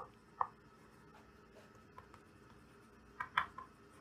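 Chalk tapping and scraping faintly on a blackboard as words are written: a few short, sharp ticks, with a quick cluster of strokes about three seconds in.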